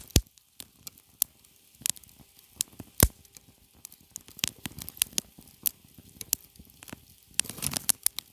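Small campfire crackling: irregular sharp pops and snaps, one loud pop about three seconds in and a busier stretch of crackle near the end.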